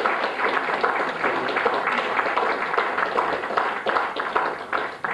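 A group of people applauding, a dense patter of hand claps that begins to die down near the end.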